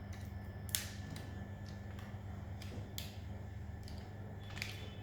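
A few sharp clicks and taps from handling a phone and its accessories, over a steady low hum.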